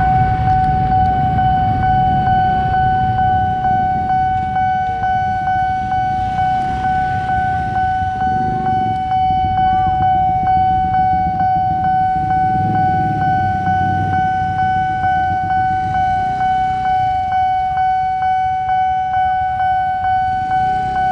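Railway level-crossing alarm sounding: a loud, steady electronic tone pulsing rapidly and evenly, with motorcycle engines idling underneath at the closed crossing.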